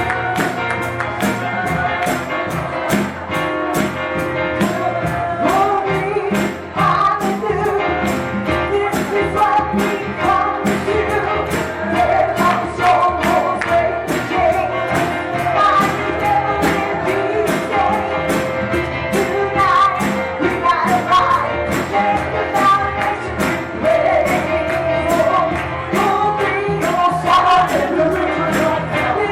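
Church music with a steady tambourine beat; singing comes in about six seconds in.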